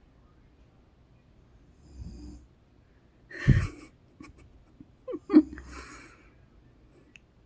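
A woman snoring in her sleep: soft, low snores about every three and a half seconds, a loud snort about three and a half seconds in, and another loud burst of snorting just after five seconds.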